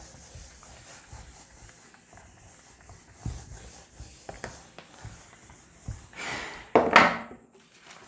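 Whiteboard duster wiping marker off a whiteboard: faint, steady rubbing with light knocks, then louder swipes about six and seven seconds in.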